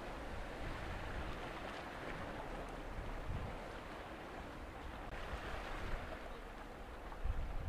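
Steady outdoor hiss of wind and water, with wind buffeting the microphone near the end.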